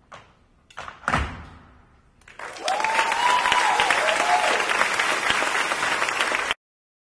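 Tap shoes striking a stage floor in a few sharp taps, ending in a loud final stamp about a second in. Audience applause follows, with a cheer rising over it, and cuts off suddenly near the end.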